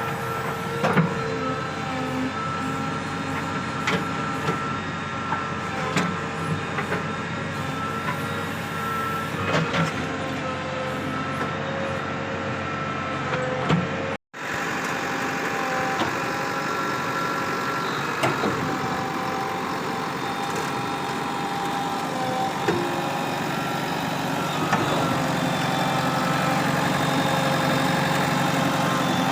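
Heavy diesel machinery engine running steadily, with scattered knocks and clanks. The sound drops out for an instant about halfway through.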